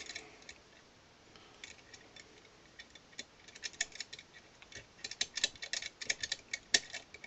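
Small metallic clicks and ticks of a lever-lock pick working inside a 5-lever mortice lock, as the pick is worked around the low levers and nudges them up. The clicks are scattered at first and come thick and fast in the second half.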